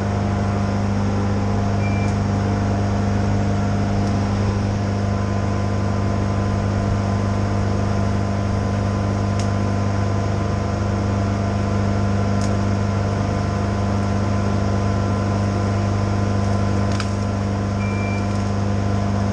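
Crane truck engine running at a steady speed, a loud, even low hum. Two short high beeps sound, about two seconds in and near the end, with a few faint clicks between them.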